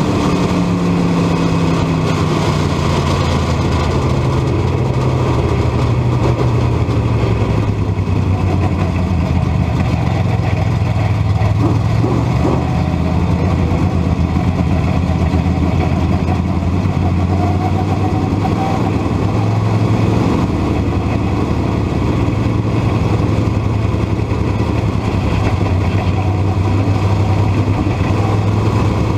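Dirt modified race car's engine heard from inside the cockpit, running hard at racing speed on a dirt oval. Its pitch falls over the first couple of seconds as the driver lifts off, then holds fairly steady with small rises and dips through the laps.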